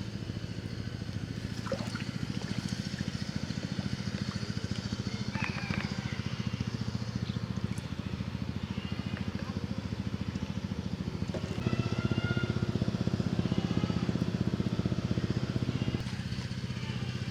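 A motor runs steadily with a low hum. It gets louder about twelve seconds in and drops back near the end, with a few faint short chirps above it.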